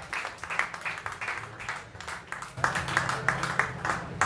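Small club audience applauding, a patter of individual hand claps that grows louder about two and a half seconds in, over a low steady hum.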